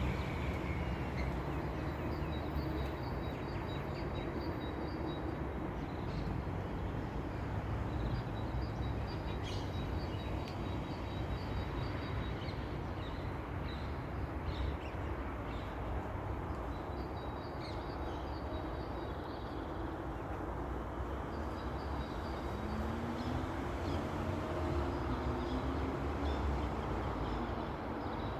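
Steady low rumble of outdoor background noise, like distant traffic, with faint high bird chirps coming in short runs every several seconds.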